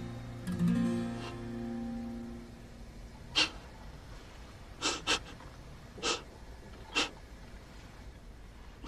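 Soft acoustic guitar music fading out in the first couple of seconds, followed by five short, breathy bursts of a person's stifled laughter, two of them close together in the middle.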